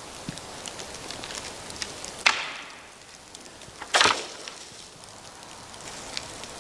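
Firewood cracking sharply twice, about two seconds in and again a second and a half later, with light snaps and ticks between.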